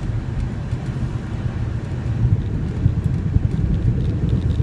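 Steady low rumble of road and engine noise from a 2005 Honda Pilot SUV driving, heard inside the cabin.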